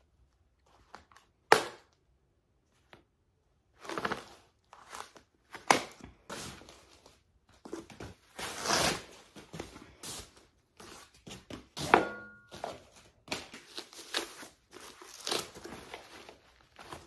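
Foam and plastic packing wrap being cut, torn and pulled off metal furniture legs, crinkling and rustling in irregular bursts. Scattered sharp clicks and knocks, the loudest about a second and a half in, and a short ringing tone about two-thirds of the way through.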